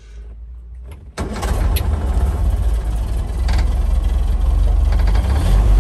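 The 2.25-litre four-cylinder petrol engine of a Land Rover Series 2 is started. The starter turns it over for about a second, then the engine catches and runs steadily. It starts cleanly.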